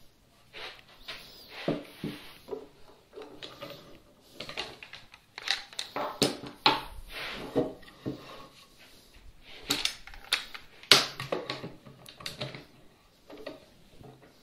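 Irregular clicks, knocks and short scrapes of a metal block plane, a bar clamp and a pine bench leg being handled on a wooden workbench. A sharp knock about eleven seconds in is the loudest.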